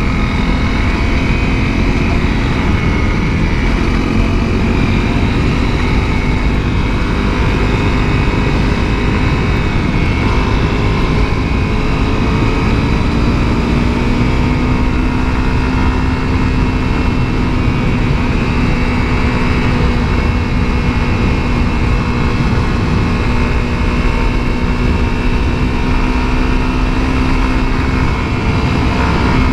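Honda CRF250L dual-sport bike's single-cylinder four-stroke engine running under way at fairly steady revs, its pitch rising slightly partway through, over a low noisy rumble.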